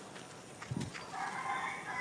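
Two dogs play-fighting. Just past a second in, one gives a high whine lasting about a second.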